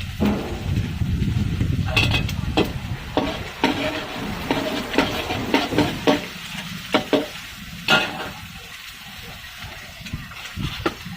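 Spatula scraping and knocking against a wok as egg, shrimp and squid are stir-fried, with sizzling underneath. The sizzle thins out in the second half while the scrapes carry on.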